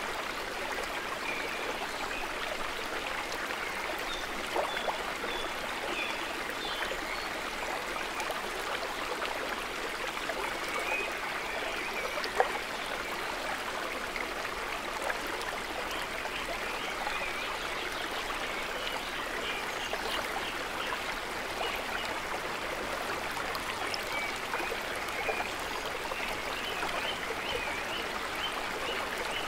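Woodland stream running over rocks: a steady rushing babble of water.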